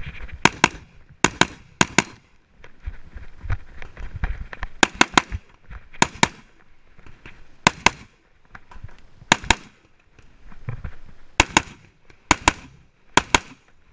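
AR-15-style rifle fired in quick pairs of shots, about ten double taps a second or two apart, the shots sharp and close to the microphone.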